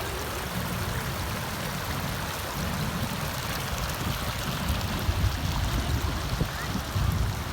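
Rainwater running in a stream, a steady rush of water, with low uneven rumbling that grows a little in the second half.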